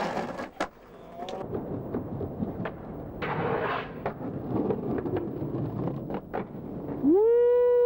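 Skateboard wheels rolling over pavement, with sharp clacks of tail pops and landings and a scraping grind along a handrail about three seconds in. Near the end a much louder steady pitched tone slides up and then holds.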